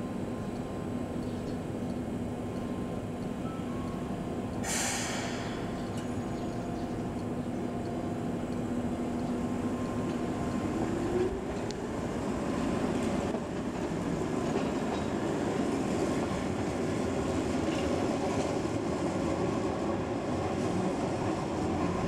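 Keihan Keishin Line electric train running on street track: steady rumble of motors and wheels with a low hum, a short hiss about five seconds in, and a brief rising whine near the middle.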